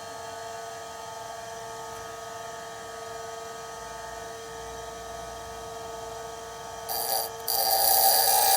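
Bench grinder running with a steady hum; about seven seconds in, a drill bit is pressed to the wheel and a loud grinding hiss starts, breaks off briefly, then carries on. This is the web of the drill's chisel edge being thinned by hand.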